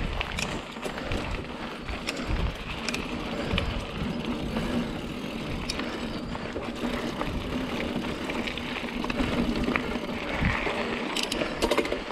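Mountain bike being ridden along a dirt singletrack trail: continuous tyre and riding noise with an uneven low rumble, and sharp clicks and knocks from the bike here and there, several in quick succession near the end.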